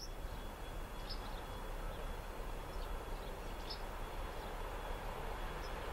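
Steady low outdoor rumble, with a few short, high bird chirps scattered through it.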